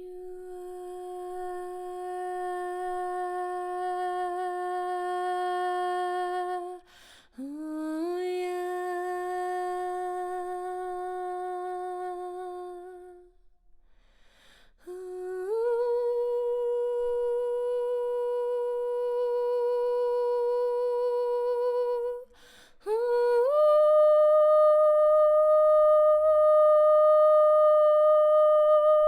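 A woman's voice toning four long, wordless held notes, each sliding up into pitch at its start, with short breaths between. The first two are on the same pitch; the third and fourth each step higher and louder.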